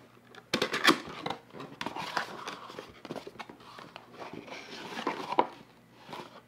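Cardboard box being opened by hand: irregular scraping, rustling and crinkling of the cardboard flaps and lid, with small clicks, starting about half a second in.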